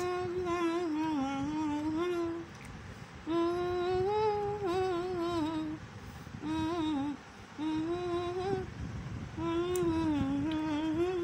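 A woman humming a wavering tune with her mouth closed, in five phrases of one to two and a half seconds with short breaks between them.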